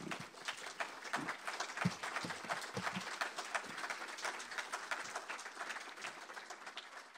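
Audience applauding: a dense patter of many hands clapping that eases off near the end, with a few dull thumps in the first three seconds.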